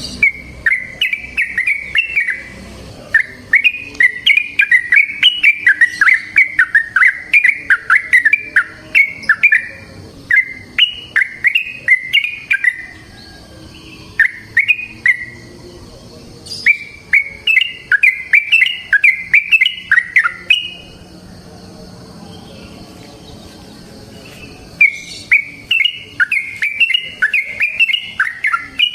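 Yellow-vented bulbul (trucukan) singing its long, rolling song: fast runs of bubbly, warbling notes repeated in several long bouts with short pauses between them.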